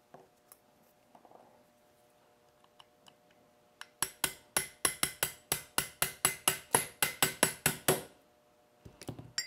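A small hammer tapping a punch to drive the front roll pin into a Smith & Wesson M&P pistol frame: about twenty quick, ringing metal taps, some five a second, starting about four seconds in and stopping near eight seconds.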